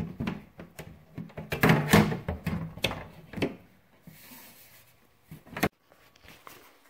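Black steel bagger-frame tubes and a bracket being handled and slid together: a run of knocks, clicks and scraping, heaviest about two seconds in, then fainter handling and one sharp click late on.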